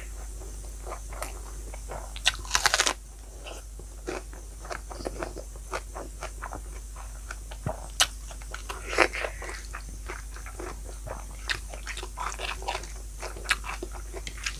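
A person chewing and biting into crunchy food, with many short crunches and a loud quick cluster of them about two and a half seconds in.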